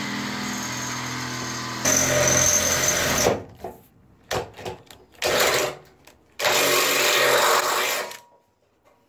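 Cordless drill boring holes through a sheet-steel car body panel. It runs steadily at first, gets louder as the bit cuts in, then goes in short bursts with a longer run near the end before stopping.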